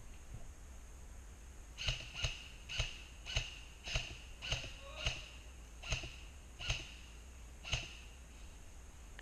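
Airsoft gun fired in single shots: about a dozen sharp cracks, roughly half a second to a second apart, that stop near the end.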